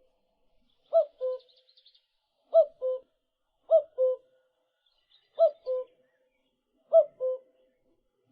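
A bird's two-note call, a short higher note then a lower, steadier one, repeated six times about every one and a half seconds, with faint high chirps between the calls.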